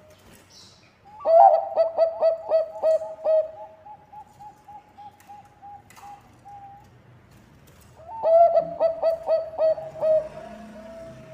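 Zebra dove (Bangkok-type perkutut) singing two bouts of its staccato cooing song, one about a second in and one about eight seconds in. Each is a rapid run of loud notes that trails off into a string of softer, slightly higher repeated notes.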